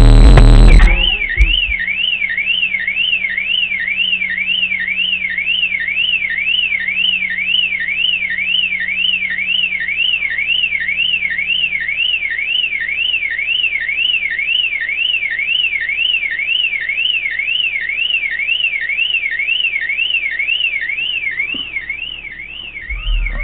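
Suzuki Vitara car alarm siren warbling steadily, its pitch sweeping up and down about two to three times a second. Loud bass-heavy music cuts off about a second in.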